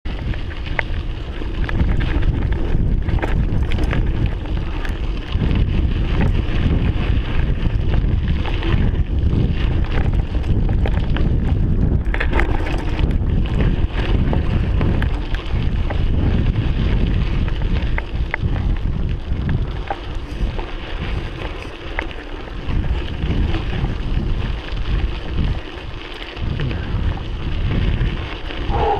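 Wind buffeting the microphone of a rider-mounted camera on a moving mountain bike, with the tyres running over a dirt trail and frequent small rattles and clicks from the bike over bumps.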